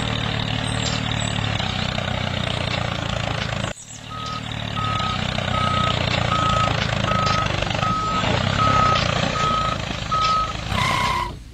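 Tractor engine running steadily, with a reversing alarm beeping at about two beeps a second from about four seconds in. The engine sound breaks off briefly just before the beeps begin.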